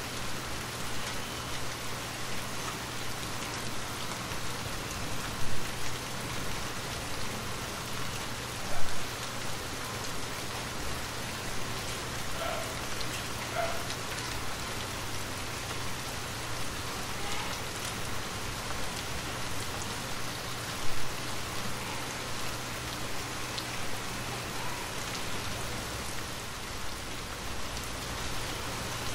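Steady rain falling and pattering on a surface, with a few brief louder hits about 5, 9 and 21 seconds in.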